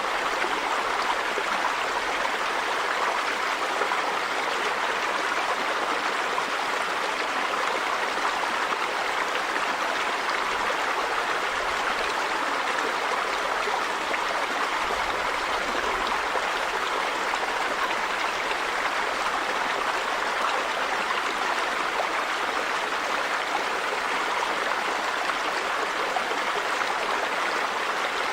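River water running over a stream bed, a steady, even rush with no breaks.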